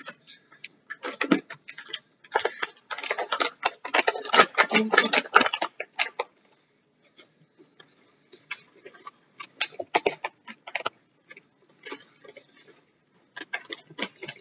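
Plastic bag of brown sugar crinkling and crackling as it is handled and sugar is scooped and tipped into a plastic measuring cup. There is a dense stretch of crackling a few seconds in, then sparser bursts of crinkles.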